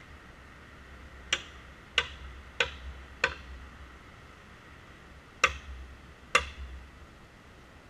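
Splitting axe striking a wedge driven into a metre-long red oak log: six sharp blows that ring briefly. Four come about two-thirds of a second apart, then two more after a pause.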